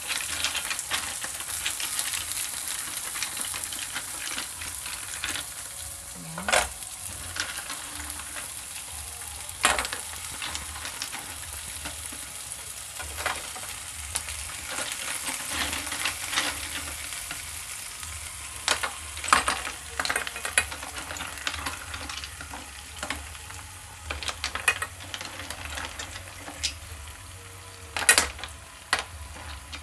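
Oil sizzling in a hot pan of onions as horn snails (bagongon) are dropped in by hand. Their shells knock and click against the pan and each other several times, sharpest near the end.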